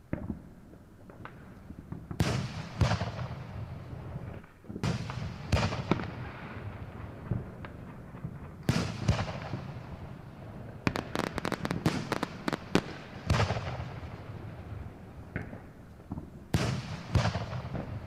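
Fireworks going off: a series of loud, sharp bangs, each trailing off in an echoing tail, with a rapid run of crackling pops around the middle.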